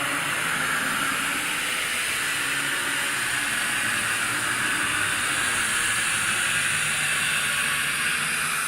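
Haunted-forest horror sound effect: a steady, wind-like rushing hiss with a faint low hum beneath it.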